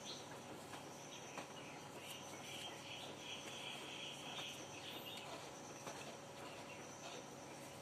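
Faint insect trilling that swells through the middle of the stretch, over a low steady background hum.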